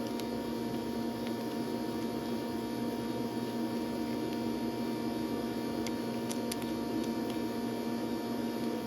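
Steady electrical hum of the workshop, with a few faint light clicks around six seconds in.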